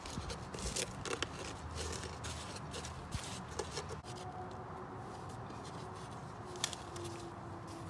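Hands pressing and scraping potting soil around a thyme plant in a plastic jug planter: soft rustling and scraping with scattered light clicks, most of them in the first second or so, over a low steady hum.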